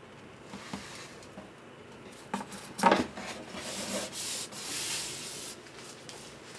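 Hand-sanding and rubbing on guitar wood in irregular strokes, with one louder scrape about three seconds in and a run of hissing sanding strokes after it.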